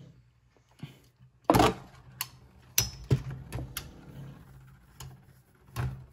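Metal-wheeled Beyblade spinning tops, L-Drago Destructor against another bey, clashing as they spin in a plastic stadium: a series of sharp, irregular clicks, the loudest about a second and a half in, over a faint steady hum.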